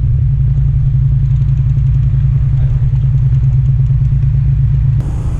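Engine on an electrofishing boat, running with a steady low drone that cuts off suddenly near the end.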